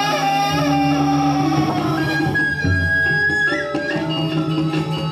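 Balinese gamelan playing: bronze metallophones ring held notes that change every second or so over a steady low hum.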